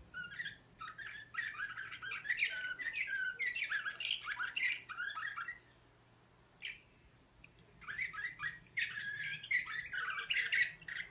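Slavujar song canary singing: fast runs of chirps and trills, breaking off for about two seconds partway through with one short note, then starting again.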